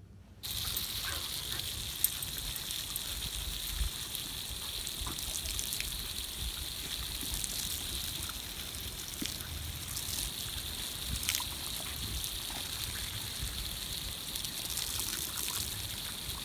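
Garden hose spraying a steady stream of water onto grass, a continuous hiss and patter, with a single sharp click about two seconds in.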